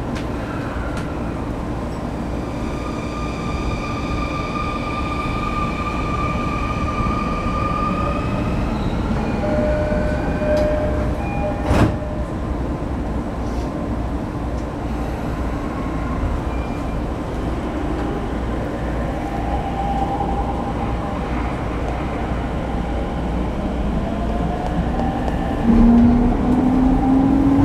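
Inside a Sotetsu 10000 series electric train, with its Mitsubishi IGBT-VVVF inverter drive: a steady rumble while stopped, then a single sharp knock about twelve seconds in as the doors shut. The inverter and traction motor whine then rises in pitch as the train pulls away, growing louder near the end.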